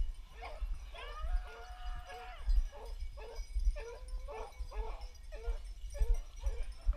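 Beagles baying on a rabbit's trail: one long drawn-out bawl, then a string of short barks about two a second. A low rumble on the microphone runs underneath.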